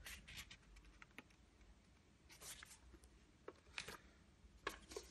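Faint rustling of paper leaflets and card being handled and pulled from a pulp-board packing tray, in a few short bursts.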